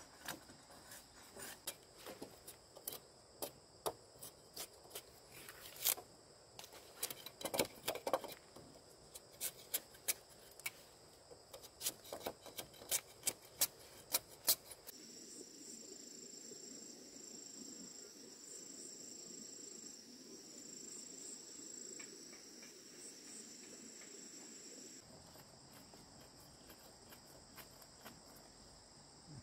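A steady, high-pitched chirring of insects runs throughout. Over the first half it is broken by many irregular sharp knocks and clicks. After that a steady low rush comes in for about ten seconds, then fades.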